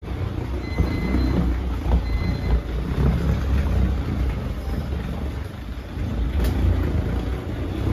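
Small wheels of a rolling bag rumbling unevenly over the studded rubber floor of an airport jet bridge, with footsteps; a sharp click about six and a half seconds in.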